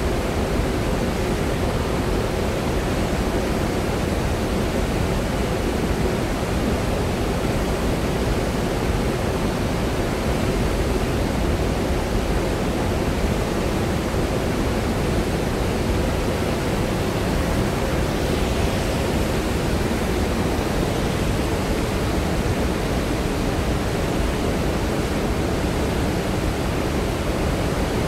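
Floodwater pouring through a large river dam's open spillway gates and churning in the river below: a loud, steady roar of rushing water from a flood release after heavy rain.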